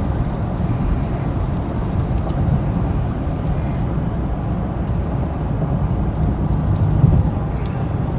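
Inside the cabin of a 2015 Lincoln Navigator under way: its 3.5-litre twin-turbo EcoBoost V6 and the road give a steady low rumble. The engine is running rough from a misfire.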